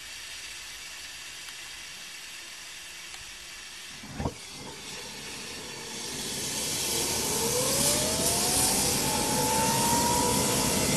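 Homemade axial jet engine starting up: a steady hiss of rushing air, a short pop about four seconds in, then the noise builds and a whine rises steadily in pitch as the turbine spools up.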